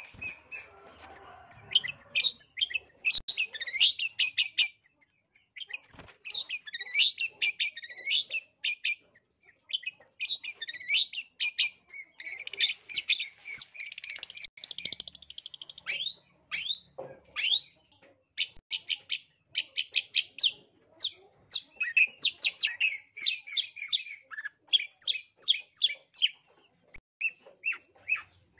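Long-tailed shrike singing vigorously in its aggressive, challenging 'narung' mode: a fast, almost unbroken stream of short, high, chattering notes and whistled phrases, with only brief pauses.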